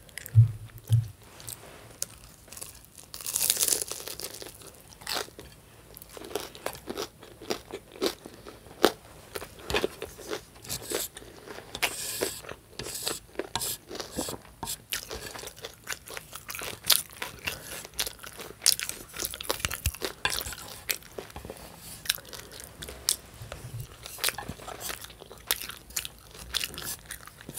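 Close-miked chewing and biting of crunchy food, a steady run of crisp crunches and wet mouth clicks.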